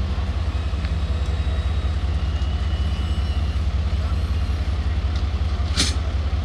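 Ambulance engine idling with a steady low rumble, with one sharp click near the end.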